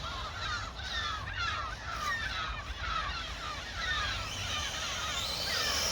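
Distant brushless electric motor of an RC truck, its high whine rising in pitch over the last second and a half as it speeds up. Underneath are short falling chirps, a few a second, and a steady low hum.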